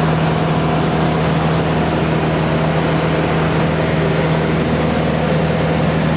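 Cabin drone of a 1974 Cessna 177B Cardinal's four-cylinder Lycoming O-360 engine and propeller in flight, heard from inside the cockpit. A loud, steady, even hum with a strong low tone.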